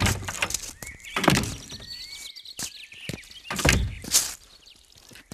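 Car doors thunking shut, several times, as people climb out of a car, with birds chirping throughout.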